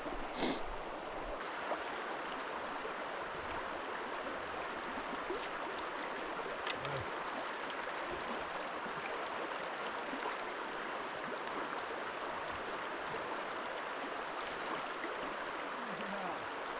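Steady rush of flowing river water, with a few faint clicks and knocks.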